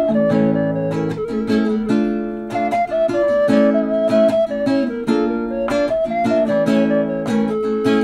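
Nylon-string classical guitar played solo: a plucked melody of quick notes over ringing chords.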